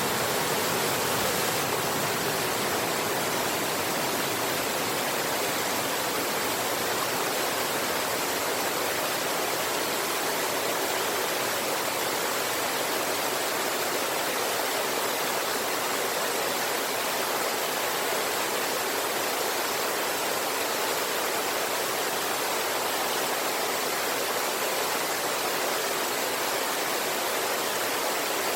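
Rushing water of a river with a waterfall: a steady, unbroken rush.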